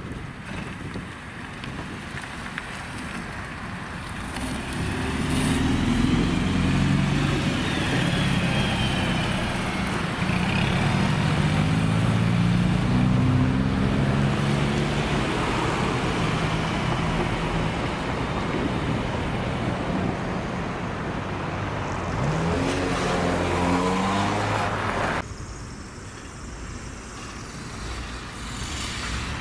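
City buses, liquefied-natural-gas Volgabus-4298.G4s among them, driving past with engines running. Just before the end one engine note climbs as a bus accelerates away, then the sound drops suddenly to quieter traffic.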